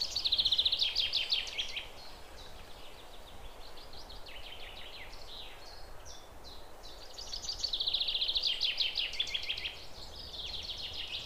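Songbird singing: rapid trilled phrases, loudest in the first two seconds and again from about seven to ten seconds in, with short chirps between, over a faint steady background hiss.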